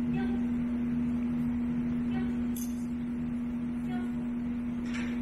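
A steady low-pitched hum throughout, with a few faint ticks and one brief high rattle about halfway through.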